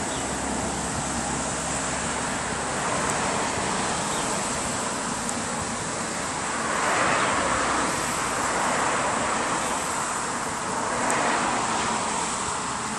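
Road traffic noise from a nearby road, with vehicles passing about halfway through and again near the end, over a thin steady high hiss.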